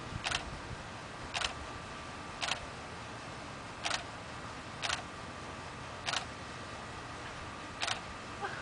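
Camera shutter firing seven separate times, roughly once a second, over a steady background hiss.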